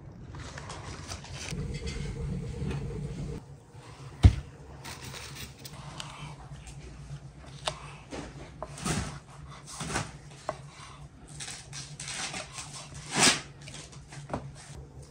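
Kitchen knife trimming the thick ribs off cabbage leaves on a wooden cutting board: a run of short scrapes and taps of the blade against the board, with one sharp knock about four seconds in. A low handling rumble fills the first few seconds.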